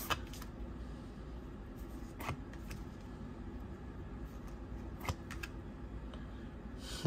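Tarot cards being handled one by one: a few brief soft flicks and clicks of card stock, the last near the end the loudest, over a low steady hum.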